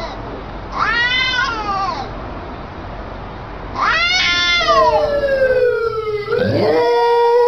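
Two domestic cats yowling at each other in a standoff: two long drawn-out yowls that rise and fall in pitch, about a second in and about four seconds in, the second trailing into a long falling tone. Near the end a different sound of steady held tones takes over.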